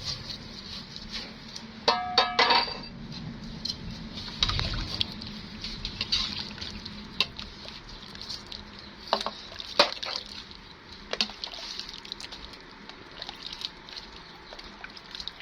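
Utensils clinking against dishes: a few ringing clinks about two seconds in, then scattered lighter taps and clicks.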